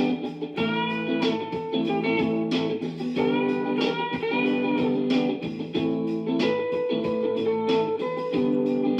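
Background music: plucked guitar with sustained notes in a bluesy style.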